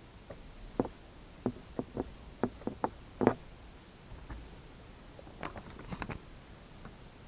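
An irregular run of sharp clicks and knocks, like hard objects being handled: about eight in the first three and a half seconds, the loudest near the end of that run. A quicker cluster follows about five and a half to six seconds in.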